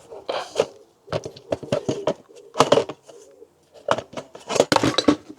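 A run of sharp clicks, knocks and rattles of hard parts being handled as the diesel heater's outer casing is worked off, coming in two busy clusters.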